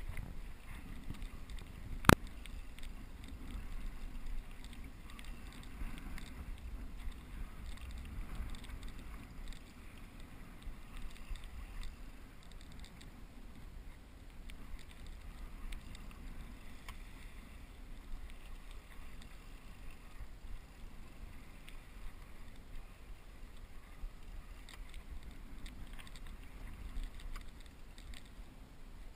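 Steady water noise around a fishing kayak at sea, with one sharp knock about two seconds in.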